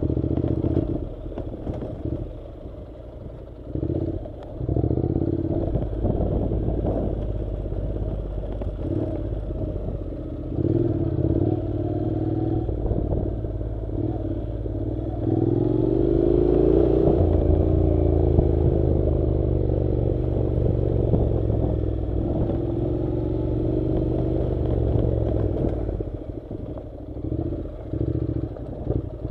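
Honda NC700's 670 cc parallel-twin engine running under changing throttle on a dirt track, rising in pitch about halfway through and easing off again, with knocks and rattles from the rough ground.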